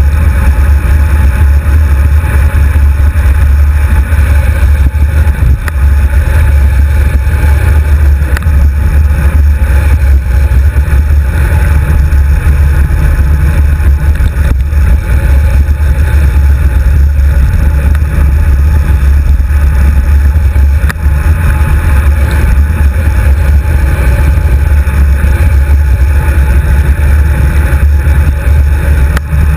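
Wind buffeting a handlebar-mounted GoPro HD2 on a moving road bike, giving a loud, steady, rumbling roar.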